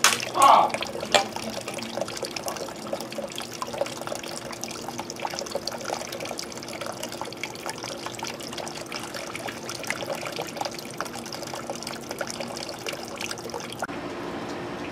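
Water trickling steadily with small splashes and clicks, and a brief loud sound about half a second in.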